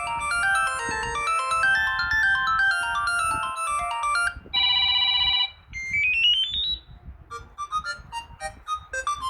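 Samsung Galaxy Tab A11 ringtones from its Retro set playing as electronic melodies. A busy tune runs to about halfway, then comes a held chord and a quick rising run of notes. A lighter tune of short, separate notes starts a couple of seconds before the end.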